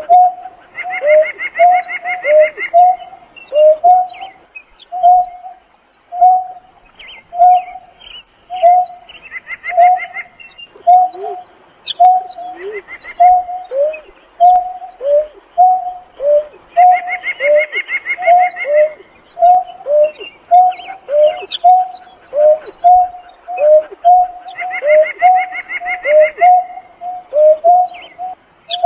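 Greater painted-snipe giving a long series of short, low, cooing hoots, about two a second, some dropping in pitch. A higher trilling chatter comes in and out every eight seconds or so.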